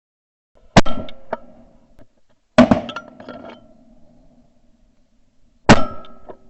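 Three shotgun shots, about two and three seconds apart, each sharp crack trailing off in a ringing echo.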